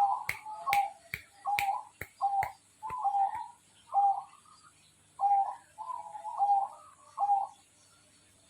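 Zebra dove (perkutut) cooing over and over, a row of short soft coos about one to two a second, with sharp clicks among the early ones; the cooing stops shortly before the end.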